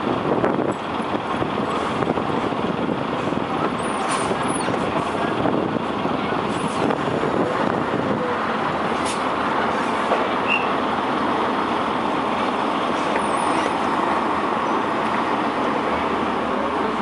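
Truck engine running steadily with road noise while driving slowly.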